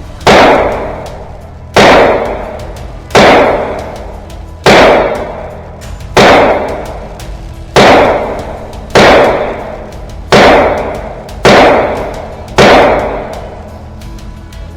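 Ruger 9mm pistol-caliber carbine firing ten single shots at an even pace, roughly one every second and a half, each shot with a long ringing tail.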